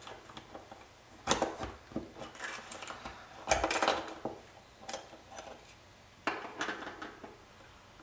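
A thin metal pick prying and scraping at a microwave turntable motor's housing, with a run of sharp metallic clicks and clinks as the inner cover and its stamped metal plate come loose.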